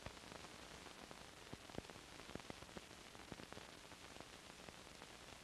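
Faint, steady hiss with scattered irregular clicks and pops, the surface noise of an old black-and-white film's soundtrack before any narration or music starts.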